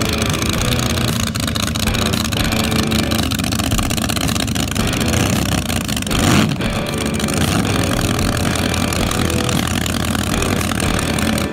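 Supercharged gasoline drag boat engine idling with a rapid pulsing beat, with a brief rev about six seconds in.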